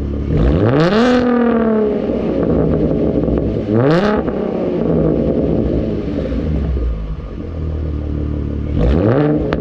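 2014 Ford Mustang Fastback engine and exhaust idling and revved three times: a quick rise and fall about half a second in, another about four seconds in, and a third near the end.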